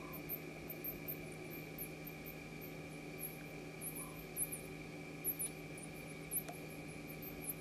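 Night bush ambience: many brief, very high-pitched chirps at an irregular pace over a steady electrical hum, with a few soft calls lower down.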